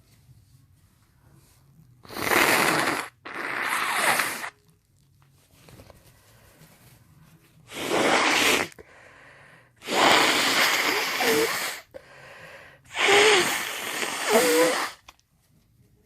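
A woman sneezing repeatedly: five loud bursts over about thirteen seconds, with quieter breathy in-breaths between the later ones.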